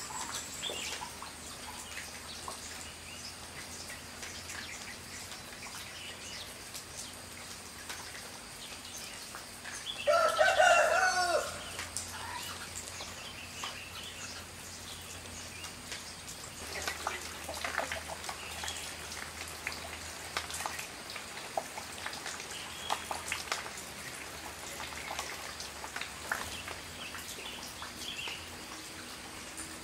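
A rooster crows once, loudly, about ten seconds in, over the steady hiss of light morning rain with scattered faint ticks and calls.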